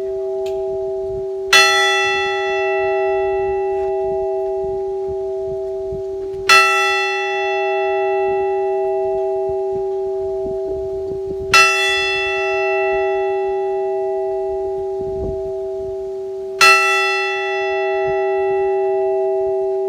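Large tower bell tolling slowly, struck about once every five seconds, four strokes here, striking the hour at noon. Each stroke starts with a bright clang and the deep hum rings on unbroken between strokes.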